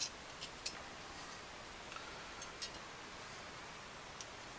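A handful of faint, sharp metallic ticks at irregular intervals: a screwdriver tip and loose steel needle rollers clicking against the race as the needles are set back into the Polaris Outlaw's rear A-arm needle bearing.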